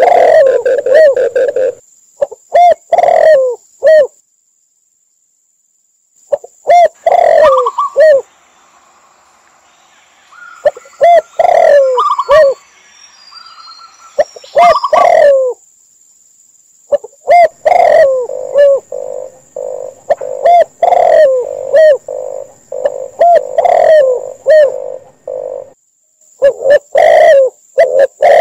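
Spotted dove, red collared dove and zebra dove calls mixed together: runs of short, repeated coos broken by pauses.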